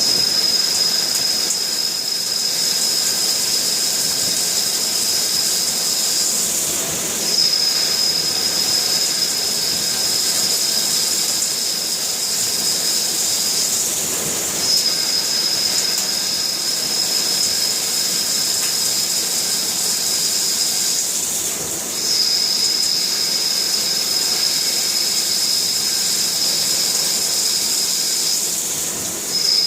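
Jyoti DX200 vertical machining centre milling a bearing housing: a steady high-pitched whine over a hiss, running in passes of about seven seconds, each broken by a brief gap.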